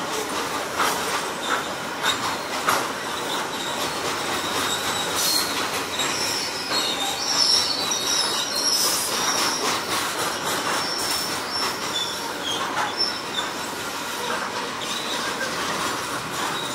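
KiwiRail freight train wagons rolling past, their wheels clacking over the rail joints, with high-pitched wheel squeal coming and going in the middle.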